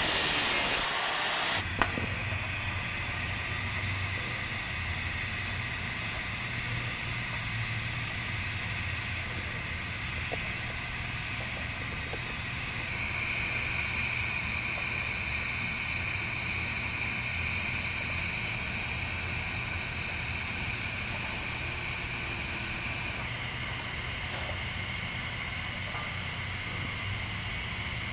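A grinder runs on the pipe joint for under two seconds. Then a TIG welding arc hisses steadily with a low hum while the hot pass is run at about 150 to 160 amps, the hiss shifting a little in tone partway through.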